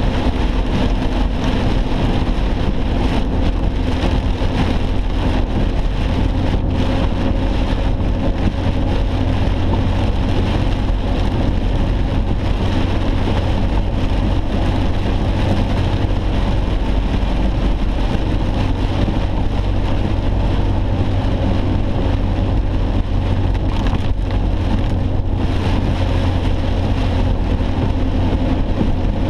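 Steady road and engine rumble inside a closed car's cabin, with heavy rain drumming on the car.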